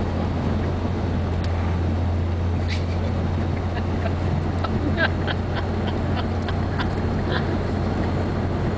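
Steady car road noise inside the cabin, with a run of about a dozen quick wet clicks in the middle as a Siberian husky licks and chews at cotton candy.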